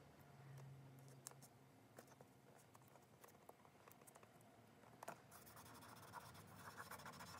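Faint scratchy rubbing of fingertips burnishing a paper decal transfer onto a metal box lid, starting about five seconds in; before that, only a few light ticks.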